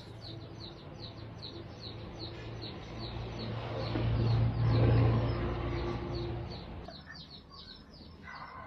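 Soldering gun humming while wires are soldered, swelling louder around the middle and cutting out about seven seconds in. A bird chirps about three times a second throughout.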